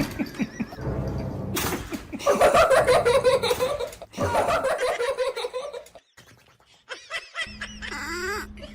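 A person laughing for a few seconds in quick repeated pulses. After a brief pause, a few short pitched calls that rise and fall come near the end.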